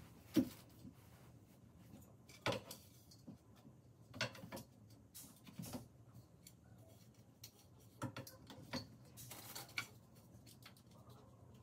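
Curved wooden bed slats clacking and clicking as they are handled and fitted into the black slat holders on a metal bed-frame rail, a scattered knock every second or two.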